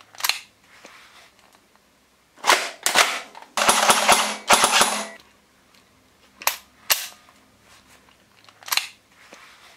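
Gunshots: single sharp cracks spaced through, with two short rapid-fire bursts a little past three and a half seconds in.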